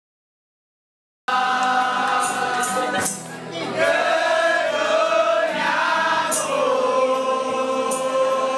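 Silence for just over a second, then a group of people singing together, holding long sung notes.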